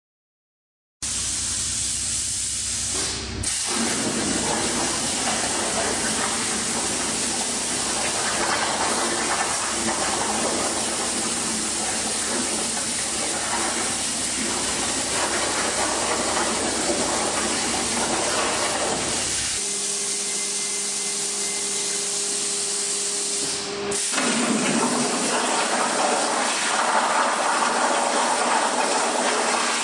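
CNC plasma torch cutting: a loud, steady hiss of the arc and cutting air, broken briefly twice, with a steady hum under it for a few seconds before the second break.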